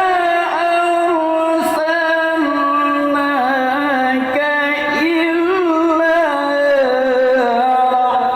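A man's voice chanting Quran recitation in the melodic mujawwad style. He holds long sustained notes broken by wavering, ornamented turns, and the pitch steps down about two seconds in.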